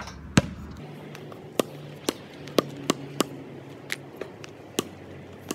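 Basketball knocking against the hoop and bouncing on the court: about ten sharp knocks at uneven spacing, the loudest near the start.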